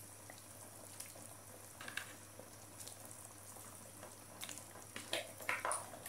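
Pot of spiced rabbit soup coming back to the boil, the broth bubbling faintly with scattered small pops, a few louder ones about five seconds in.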